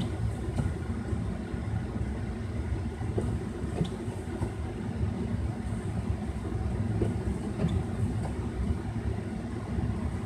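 A train's cars rolling past over a road crossing: a steady low rumble with a few faint scattered clacks, heard from inside a waiting car.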